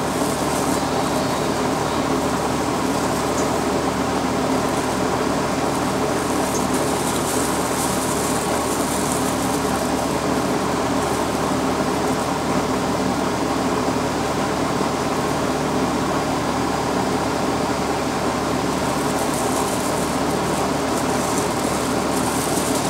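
A steady mechanical hum holding several fixed tones, even and unchanging throughout.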